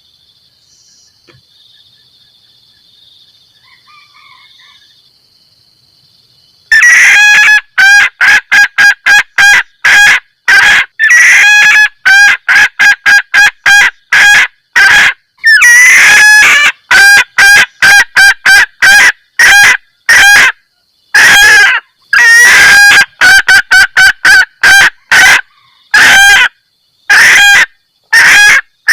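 Junglefowl hen giving her cackling 'kekkek' mating call, played as a lure to call in males. A rapid, very loud run of short clucks, about two to three a second in bursts with brief gaps, starts about seven seconds in. Before that there is only a faint steady high buzz.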